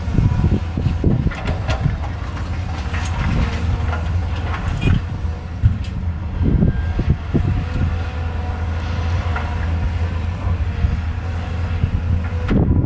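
Excavator's diesel engine running steadily, with repeated clanks and scrapes as the bucket works stone.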